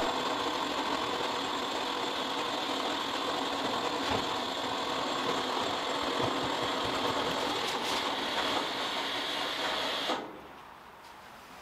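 Electric boat winch, powered from a car battery, running steadily as it lowers a heavy hard top on straps. The motor stops about ten seconds in, once the load is down.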